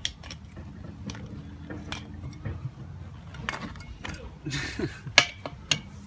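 Metal tools clinking and scraping against an alloy wheel rim as a dry-rotted tire is cut and pried off it: scattered sharp clinks, a short scrape, and the loudest knock about five seconds in.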